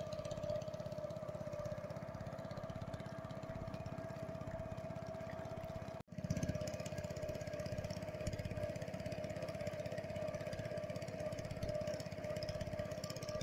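Small outboard engine of a motorized wooden country boat running steadily under way, with an even drone and whine. The sound cuts out for an instant about six seconds in.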